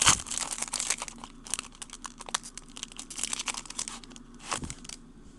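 Foil wrapper of a baseball card pack being torn open and crinkled by hand: a run of small crackles, with one sharper crack about four and a half seconds in.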